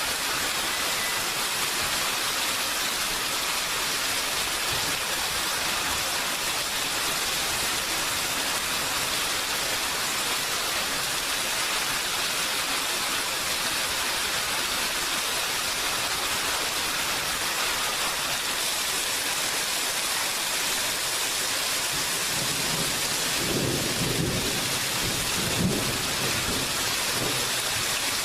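Steady rain falling, an even hiss, with a low rumble of thunder near the end.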